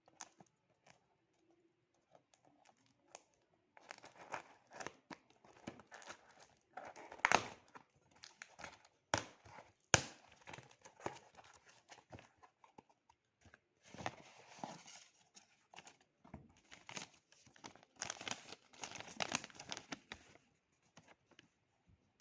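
Plastic and paper packaging crinkling and tearing as a parcel is opened by hand, in irregular bursts with sharp snaps, the loudest about ten seconds in.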